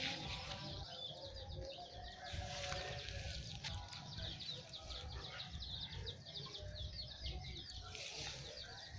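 Yard sounds: a rapid high chirping runs on steadily, over a low rumble of wind on the microphone, with occasional farm-animal calls.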